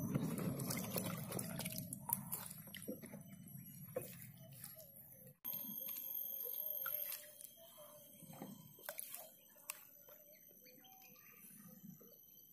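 Faint handling noise and scattered light clicks from a spinning fishing rod and reel being held and worked, over a faint steady high-pitched hum.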